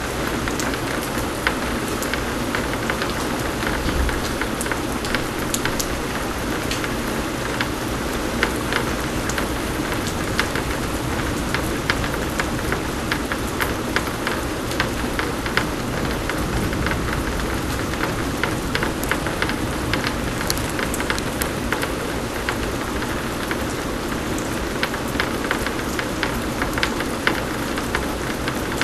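Steady pouring rain, with many individual drops ticking sharply on nearby surfaces.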